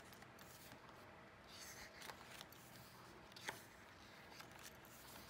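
Faint rustling of glossy photo-book pages being handled and turned, with one sharper paper snap about three and a half seconds in.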